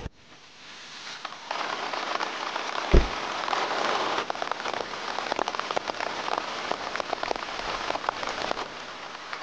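Heavy rain falling, a steady hiss thick with sharp drop impacts that builds over the first second and a half. A single dull thump about three seconds in is the loudest sound.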